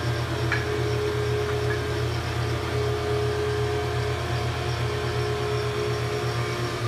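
Steady machine hum with a low drone and a held mid tone: a spindle shaper's motor and spindle running with no wood being cut.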